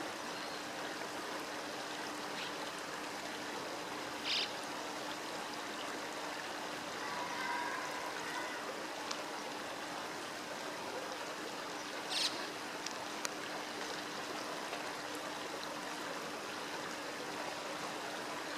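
River water running steadily, with two short high-pitched calls about four seconds and twelve seconds in.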